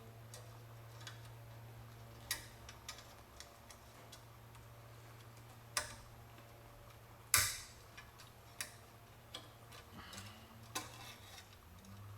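Scattered small clicks and taps of metal parts being handled as a window-trim clip is worked onto its stud, the loudest about seven seconds in, over a steady low hum.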